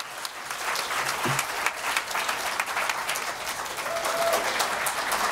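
Audience applauding: many hands clapping in a dense, steady patter that swells in over the first second.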